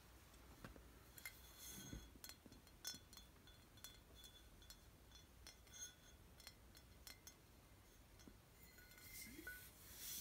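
Soft, irregular taps and clinks on glass wine bottles, each tap leaving a brief high ringing tone, with a small flurry of taps near the end.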